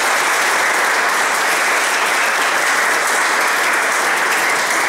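Audience and choir applauding, a steady round of clapping.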